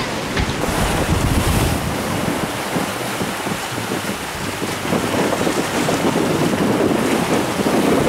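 Wind buffeting the microphone over the rush and splash of sea water along the hull of a sailing yacht under way under sail.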